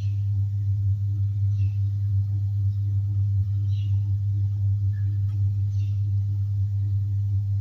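Steady low electrical hum from the recording setup, unbroken throughout, with a faint click about five seconds in.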